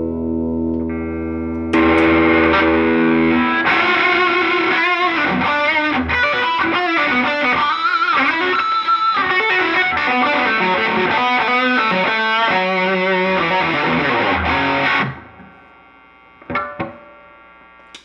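2019 Gibson Les Paul Classic electric guitar played through a Fender Deluxe Reverb amp with distortion. A chord rings, then fast distorted riffing and lead lines follow. The playing stops suddenly about fifteen seconds in, and a couple of brief sounds come near the end.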